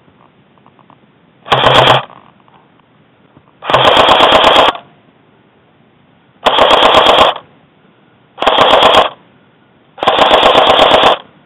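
Airsoft rifle firing five full-auto bursts of rapid shots, each about half a second to a second long, with short pauses between.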